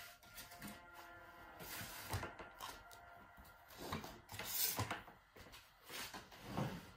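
Scattered soft knocks, rustles and brushing noises of someone working in a small room, with a brief, sharper hiss about four and a half seconds in.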